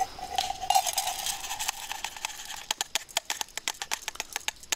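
Soaked rice tipped from a metal mesh strainer into an aluminium cook pot. The pot rings briefly as the strainer knocks its rim at the start, the grains rustle as they slide in, then a run of quick, sharp clicks follows.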